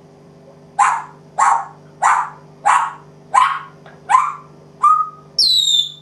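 African grey parrot mimicking a dog's bark: about seven short barks, roughly two-thirds of a second apart, then a high whistle falling in pitch near the end.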